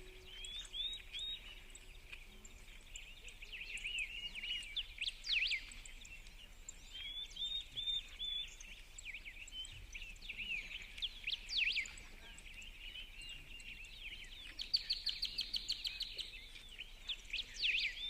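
Several small birds chirping and singing, short quick notes overlapping throughout, with one fast trill about three-quarters of the way through.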